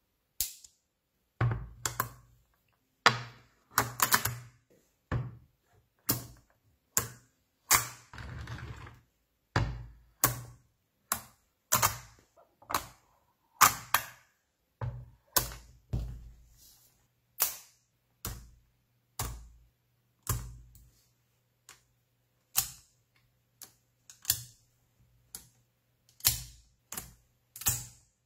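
Small cube neodymium magnets snapping together as strips of them are set into place, each one a sharp metallic click with a short thud. About one click a second, some in quick pairs.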